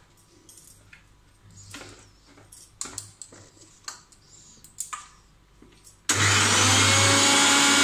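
A few light clicks and knocks as the steel jar of an electric mixer grinder is set on its base and the lid pressed down. About six seconds in, the grinder's motor starts suddenly and runs loud and steady, grinding grated beetroot, garlic and green chillies into a paste.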